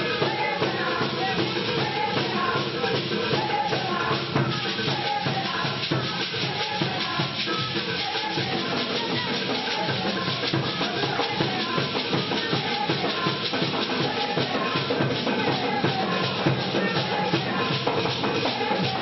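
Percussion-led dance music: drums and shaken rattles keep up a steady, continuous beat.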